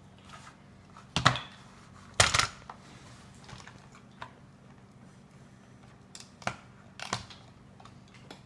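Hard plastic toy parts and Play-Doh tub pieces being handled and knocked on a wooden tabletop: a few sharp clacks about one and two seconds in, then scattered lighter taps and knocks.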